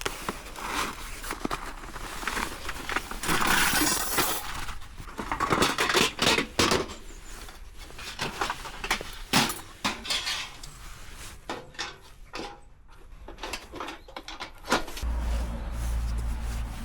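Clattering and clinking of metal camp gear and wood being handled while a campfire is set up: many separate knocks and scrapes, with a steady low rumble coming in near the end.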